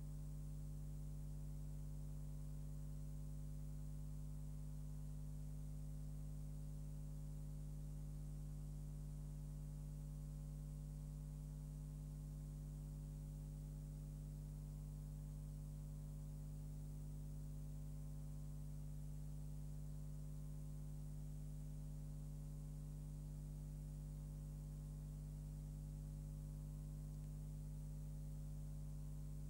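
Steady electrical hum with a faint hiss above it, unchanging, with no other sound.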